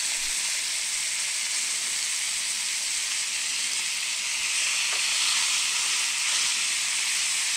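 Carne de sol (sun-dried beef) frying in very hot margarine in a small frying pan: a steady, dense sizzle.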